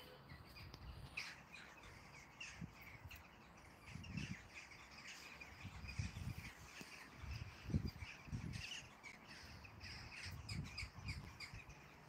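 A flock of birds calling from the sky, many short calls overlapping throughout, with irregular low thumps on the microphone.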